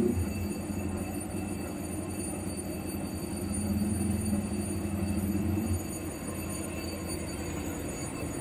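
Low, steady hum of a standing CC 206 diesel-electric locomotive, which drops a little about six seconds in.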